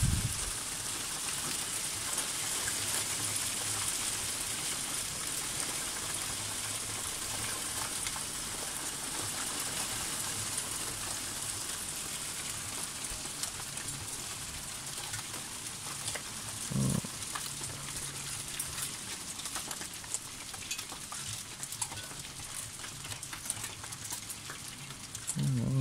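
Light hail and rain falling: a steady hiss with scattered faint ticks of pellets striking.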